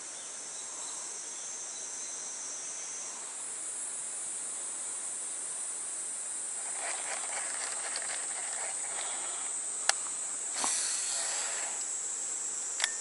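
Steady high-pitched chorus of insects, with brief rustling and two sharp clicks about three seconds apart in the second half.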